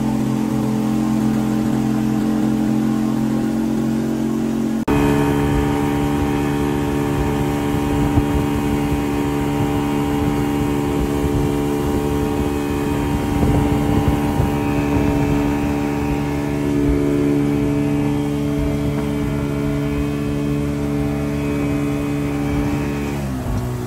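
Boat's outboard motor running steadily at speed, an even engine drone. About five seconds in it jumps abruptly to a louder, fuller drone, and the pitch dips slightly near the end.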